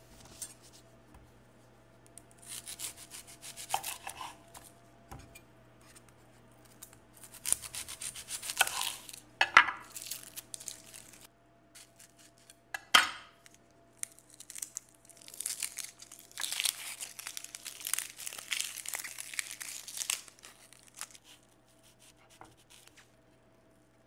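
Dry papery onion skin being peeled and crinkling in several spells, with a chef's knife cutting into the onion and knocking twice on a wooden cutting board, the louder knock about 13 seconds in. A faint steady hum runs underneath.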